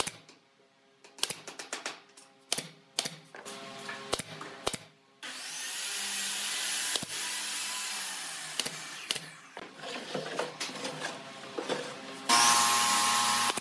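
Pneumatic brad nailer firing a quick run of sharp shots into pine slats during the first five seconds. After that comes a steady hiss of shop machinery, and about twelve seconds in a louder steady machine sound starts.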